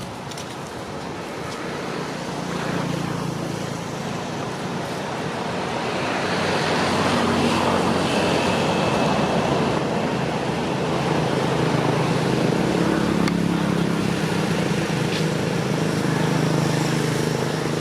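A motor vehicle's engine running with a steady low hum, growing louder over the first several seconds and then holding steady.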